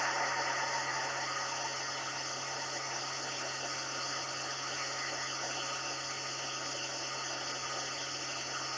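Steady hiss with a low hum underneath, with no distinct events: background noise of the recording between stretches of narration.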